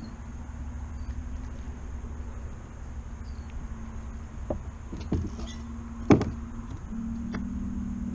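Bass boat's bow-mounted electric trolling motor running with a steady whine. The whine cuts out briefly about seven seconds in and comes back with a slightly changed tone. A few knocks sound on the boat, the loudest about six seconds in, over a low rumble.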